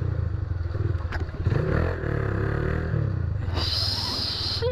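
Honda Titan 150's single-cylinder four-stroke engine running through an aftermarket Roncar aluminium sport exhaust, noisy, its revs rising and falling about a second and a half in. A high hiss comes in about three and a half seconds in.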